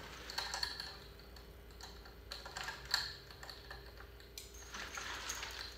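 Faint scattered clicks and rustles of gear being handled and rummaged through at the edge of a batting cage net, with one sharper click about three seconds in.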